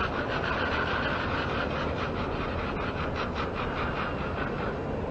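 Eurasian magpie chattering: a fast run of repeated calls that fades out about three and a half seconds in, over a steady low background rumble.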